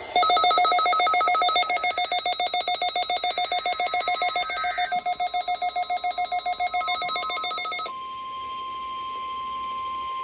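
NOAA Weather Radio alert test tones. First comes a shrill electronic alert tone, several pitches at once, that pulses rapidly for several seconds. About eight seconds in it gives way to a single steady tone, the 1050 Hz weather radio warning alarm tone.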